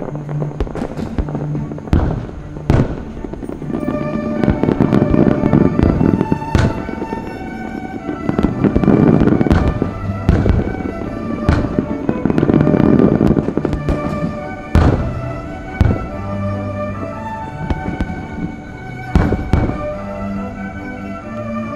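Fireworks bursting with sharp bangs and stretches of dense crackle, over orchestral music.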